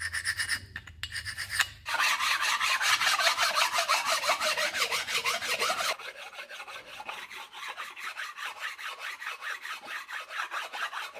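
Abrasive pad scrubbing back and forth by hand across the machined face of a Hyundai D4CB engine block, in quick even strokes about four a second. The rubbing gets louder about two seconds in and quieter again about six seconds in.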